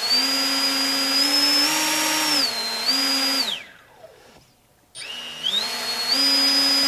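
Brushless RC motor with propeller, driven by an ESC running SimonK firmware, whining as the throttle is stepped up and down. It spins down about three and a half seconds in, stops for a moment, then spools up again with a rising whine and holds a steady speed.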